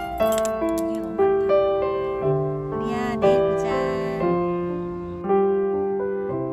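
Soft background piano music, a melody of sustained notes struck one after another.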